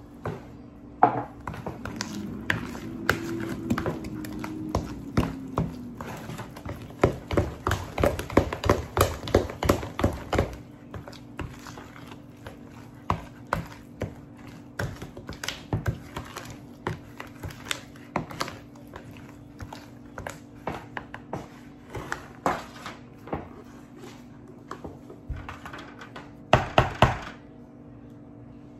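A spoon knocking and scraping against a red mixing bowl while stirring thick cornbread batter, in quick irregular clacks that come fastest about a third of the way through. A louder burst of scraping and knocks comes near the end as batter is scooped out toward the pan.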